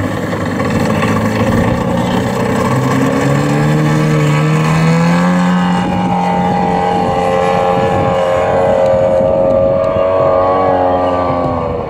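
Engine of a 50% scale Cub radio-control model airplane running at high power as it flies low past and climbs away. The engine note rises over the first few seconds, then holds steady.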